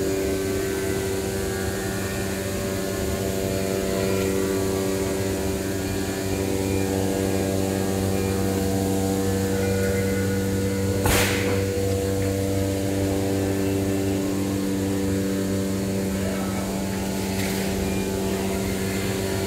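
Flatbed CNC knife cutting machine running with a steady hum made of several held tones. A brief sharp noise cuts through about eleven seconds in.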